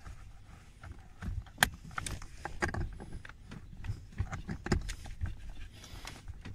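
Irregular clicks, taps and fumbling of a wiring connector being worked onto the back of a blower-motor final stage resistor behind the dashboard, with one sharp click about a second and a half in.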